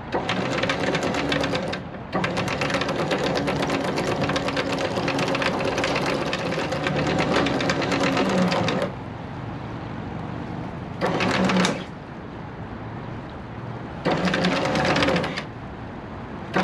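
Anchor windlass hauling in anchor chain: a steady motor hum under a fast even rattle of links. It runs for about nine seconds with a brief stop near two seconds, then starts again only in short bursts of about a second.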